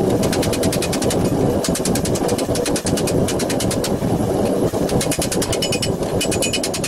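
Rapid, light hammer taps on a steel gauntlet plate held on a stake, many strikes a second with brief pauses, as the knuckle flutes are gently teased into shape. A steady low rumble runs underneath.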